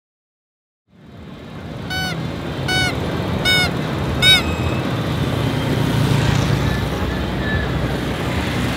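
Steady road traffic and engine noise fading in after a second of silence. Four short, high squeaky chirps about three-quarters of a second apart sound over it between about two and four and a half seconds in.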